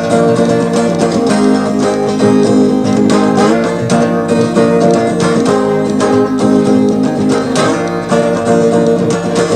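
Red Baldwin 712 twelve-string semi-acoustic guitar, unamplified, strummed in an instrumental passage, recorded on a cassette tape recorder.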